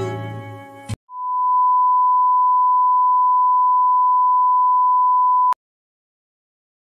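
A steady, pure test-tone beep, the bars-and-tone signal, lasting about four seconds and cutting off suddenly. Before it, the live acoustic-guitar concert music fades and cuts off about a second in.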